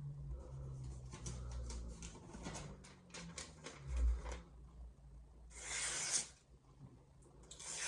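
Sharp VG10 santoku blade slicing paper to test an edge fresh off the sharpening stone: paper rustling and handled, then two short hissing slices, one about six seconds in and one at the end.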